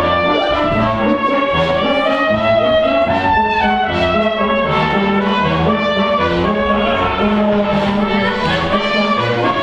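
Instrumental music, with brass and strings playing sustained melodic notes at a steady, full level.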